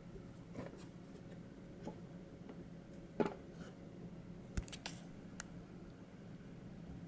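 Faint rustles and a few small sharp clicks over a steady low hum: one soft rustle about three seconds in, then a quick cluster of clicks a little past halfway.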